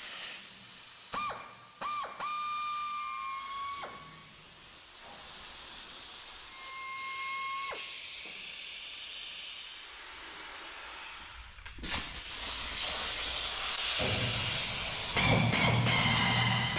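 Pneumatic air drill drilling out spot welds in the car body's sheet steel: short bursts of a whining air motor over hissing exhaust air, then running longer and louder through the second half.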